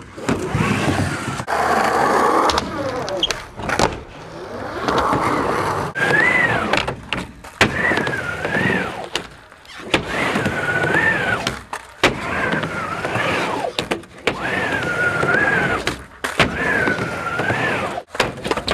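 Skateboard riding back and forth on a mini ramp. The wheels' rolling noise swells and fades about every two seconds, a whirring tone rises and falls with speed, and sharp clacks come as the board hits the metal coping at each turn.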